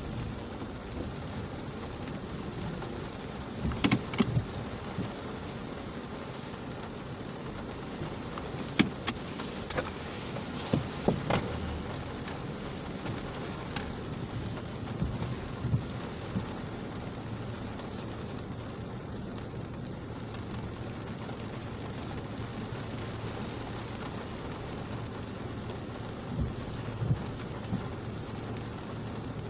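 Heavy rain falling on a car's roof and windscreen, heard from inside the cabin: a steady hiss with scattered sharper taps and knocks.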